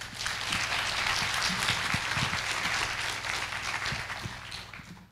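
Audience applauding in a hall, many hands clapping together, starting at once and dying away near the end.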